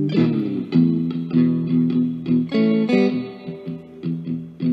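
Background music: plucked guitar playing a melody over chords, with a bass line.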